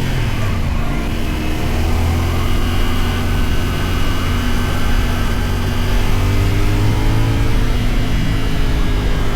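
450 SR motorcycle engine running while riding, with wind and road noise. Its pitch drops about a second in, as at a gear change, then holds steady and climbs slightly.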